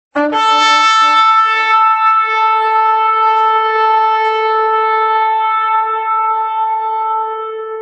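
Shofar blown in one long blast. It opens with a brief lower note, breaks up to a higher note that is held, and slowly fades toward the end.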